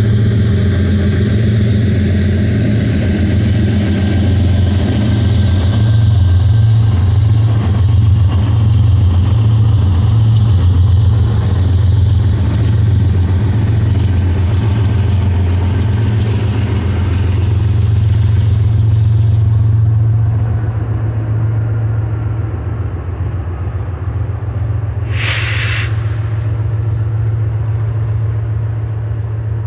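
Mid-train distributed-power GE diesel locomotives (Dash 9-44CW and ES44 units) of a long double-stack container train passing close by, their engines running with a steady, loud low drone. A short, sharp hiss comes near the end.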